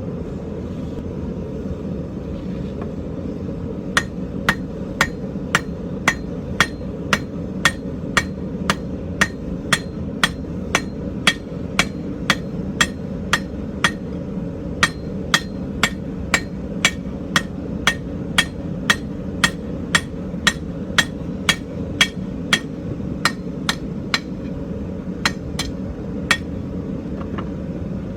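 Hand hammer striking an iron rod on an anvil to flatten and flare its end, steady blows about two a second with a short metallic ring on each, starting a few seconds in and stopping shortly before the end. A steady low rumble runs underneath.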